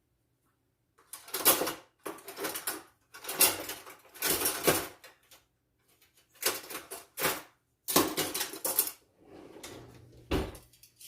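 Kitchen utensils and cookware clattering and rattling in a string of short, irregular bursts with brief pauses, as utensils are picked through and handled.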